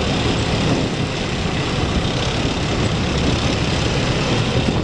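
A heavy vehicle's engine running steadily at driving speed, with road and wind noise, heard from aboard a moving vehicle.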